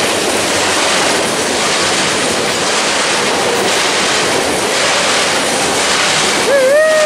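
Freight cars of a CSX manifest train rolling past close by: a steady wheel-on-rail rumble with a clatter that swells about once a second as the wheels go by. A single high tone that rises, holds and bends comes in near the end.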